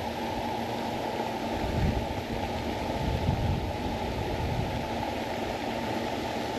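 Steady rushing outdoor background noise, with low rumbling swells about two and three seconds in.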